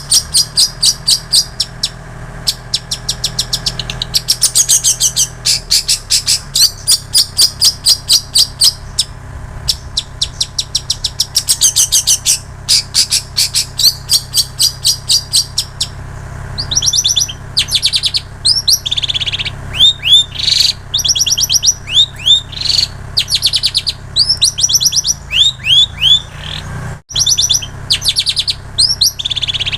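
Long-tailed shrike (cendet) singing a song filled in with mimicked prinia (ciblek sawah) and canary phrases: fast runs of high repeated chattering notes, turning about halfway to quick, separate down-slurred whistles.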